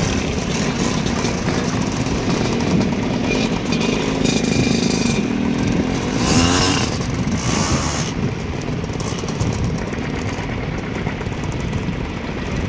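Vintage two-stroke motor scooters riding past one after another, their small engines buzzing. One passes close about six seconds in, its note sweeping as it goes by.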